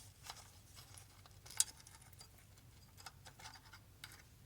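Faint scattered metal clicks and scrapes of hand tools and bolts as the power-valve cover of an Autolite 2100 carburetor is unbolted, with one sharper click about a second and a half in.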